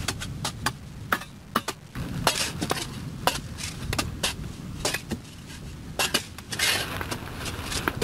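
Hand tools working hard earth: a steel digging bar and shovels striking the pit floor in irregular metallic clinks and knocks, two or three a second, with a longer scrape of a shovel through soil near the end.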